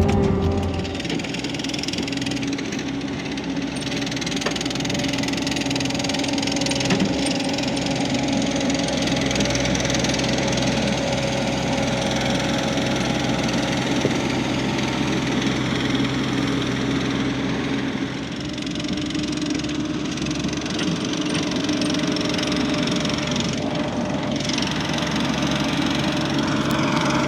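A 2005 ASV RC-100 compact track loader's turbocharged Perkins diesel running steadily as the machine works. The engine note drops about a second in and shifts again around eighteen seconds in.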